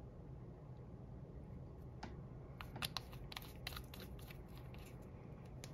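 A run of light, irregular clicks and scratches from small nail-stamping tools and supplies being handled at a work surface, starting about two seconds in, over a steady low hum.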